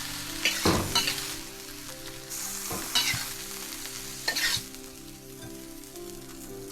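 Food sizzling in a hot wok, with a spatula stirring and scraping about three times.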